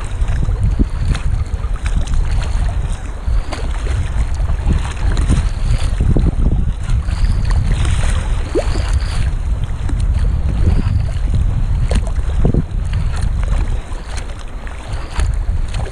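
Wind buffeting a camera microphone during sea kayaking on choppy water, a steady low rumble with frequent short splashes from paddle strokes and waves slapping the kayak's hull.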